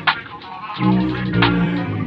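Music: an electronic hip hop beat with a bass line and sharp snare-like hits. The bass drops out for about half a second near the start and then comes back in.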